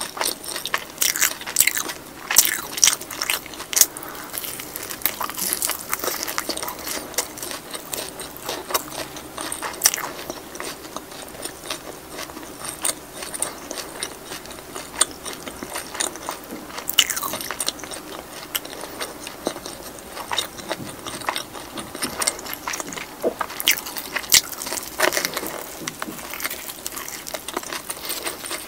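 Close-miked eating of a soy-sauce fried chicken drumstick: irregular crunching bites into the crisp skin and chewing, with many small crackles and clicks.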